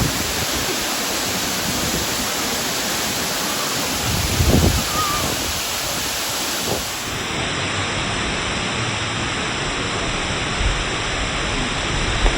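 Waterfall rushing steadily, a constant hiss of falling water, with a brief low thump about four and a half seconds in.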